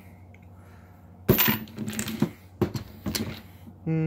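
Loose coins clattering and clinking on a wooden workbench: a sharp clatter about a second in, then a few separate clinks.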